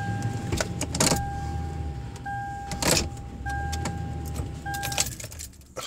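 Toyota Tundra's warning chime sounding in uneven on-off pulses over a low engine hum, with two sharp clicks about one and three seconds in.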